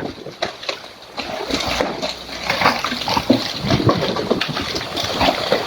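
Storm noise: heavy rain splashing and strong wind gusting, a continuous rushing with many small irregular spatters.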